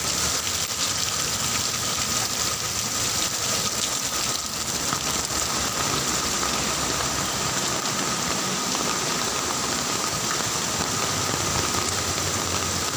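Heavy rain falling steadily and splashing on the ground.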